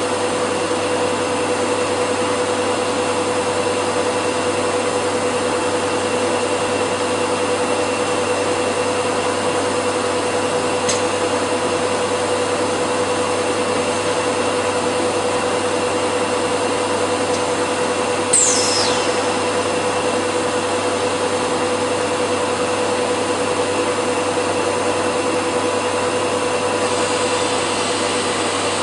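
PTP CNC router running steadily, a constant machine whine over a noisy hiss. A faint tick comes about 11 seconds in, and a short high squeal falls in pitch about 18 seconds in.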